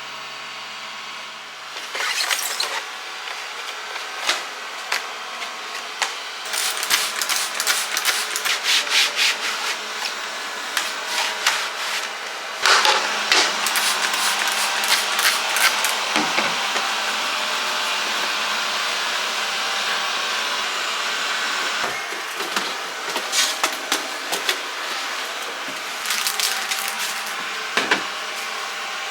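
Scrubbing: quick back-and-forth rubbing strokes on a hard surface in spurts, with a longer unbroken stretch of rubbing in the middle.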